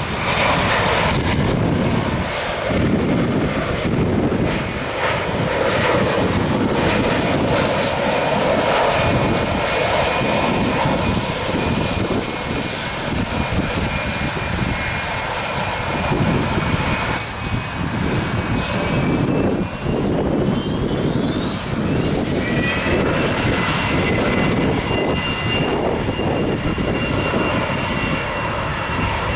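Jet airliner engines running loud and steady, with a high whine that climbs in pitch about twenty seconds in and then holds at the higher pitch.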